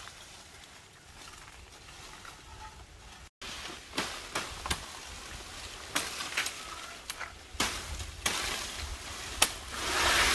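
Sharp strokes of a curved knife chopping leafy side shoots off freshly cut cinnamon branches, about ten at irregular intervals from the second half on, with leaves rustling; the rustle swells near the end.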